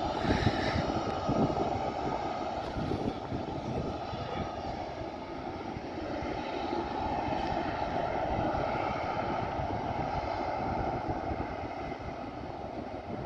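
Emirates Boeing 777's twin jet engines running steadily, a continuous rumble with a faint whine above it, as the airliner rolls along the runway. The sound eases off a little near the end.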